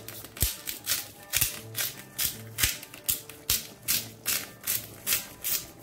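Salt being dispensed over a pan of chili con carne in about a dozen short, even strokes, roughly two and a half a second, with soft background music underneath.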